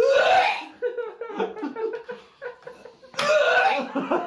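A woman retching loudly twice, about three seconds apart, the first with a rising pitch; she is gagging at the smell of a freshly opened can of surströmming. Fainter vocal sounds come between the two retches.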